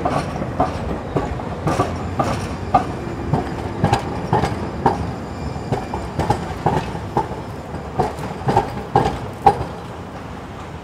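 San Diego Trolley light rail train passing close by: steady rumble with an irregular run of sharp wheel clacks on the track, about two a second, fading near the end.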